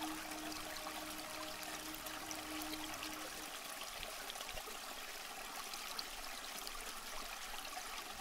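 Steady trickling, flowing water with a fine crackle, and a low steady tone that stops about three and a half seconds in.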